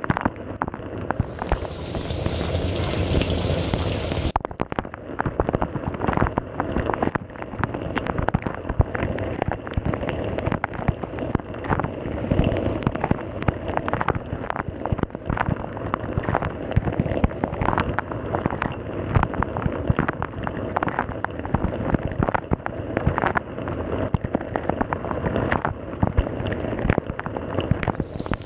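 Water spraying and splashing inside a Samsung dishwasher during a wash cycle: a dense, irregular patter of drops over a steady rushing hiss. A brighter, higher hiss joins for about three seconds near the start.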